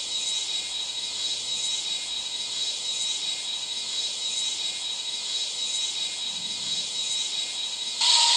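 Airbus A340 on approach: a steady rushing hiss of airflow and engine noise with a faint, steady high whine. Near the end comes a brief, louder sound with a tone in it.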